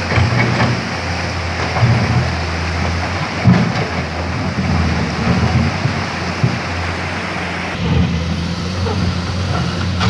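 Komatsu PC210 hydraulic excavator's diesel engine running with a steady low hum, under a loud rushing hiss and scattered knocks.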